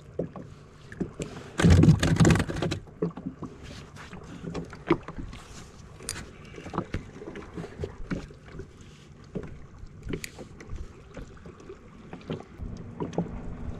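Handling noise of fishing tackle in a small boat: scattered small clicks and knocks from the spinning rod and reel, with one loud rustling burst about two seconds in as a just-caught grouper is unhooked.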